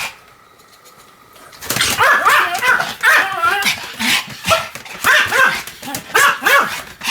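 Pomeranian barking in a rapid string of short, high yips, starting about a second and a half in after a brief pause.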